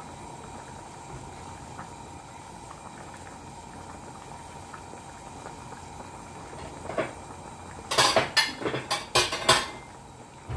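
Pot of pork and vegetable soup at a rolling boil, with a steady bubbling hiss. About eight seconds in there is a quick run of loud kitchenware clatters and clinks.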